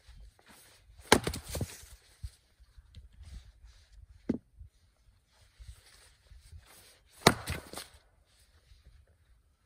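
An axe splitting firewood on a chopping stump: two sharp strikes about six seconds apart, each followed by the split pieces clattering down. There is a softer knock of wood in between.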